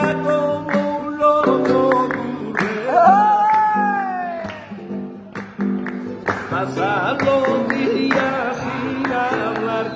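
Flamenco singing by a man, accompanying himself on a Spanish guitar. A long wordless sung line rises and then slowly falls about three seconds in, and more wavering sung phrases follow from about six seconds, over the guitar's chords and runs.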